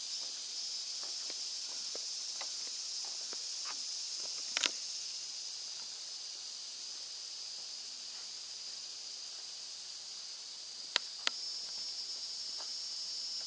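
Steady high-pitched insect chorus, broken by a few sharp clicks: a double click about a third of the way in and two more near the end.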